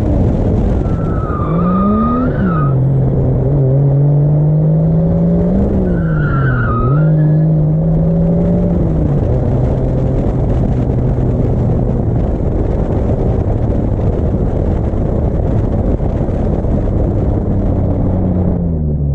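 Turbocharged Toyota 2JZ straight-six in a drifting 240SX revving up and down, with the tyres squealing twice in the first seven seconds. After that the engine holds a steady note.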